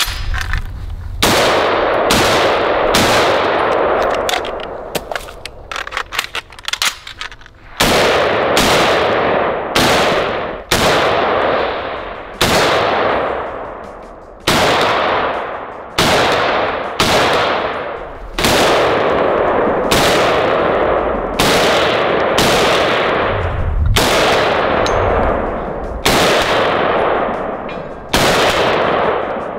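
An M14-pattern 7.62 NATO battle rifle fired semi-automatically, some two dozen shots at roughly one a second with a pause of a few seconds early on. Each shot trails off in an echo.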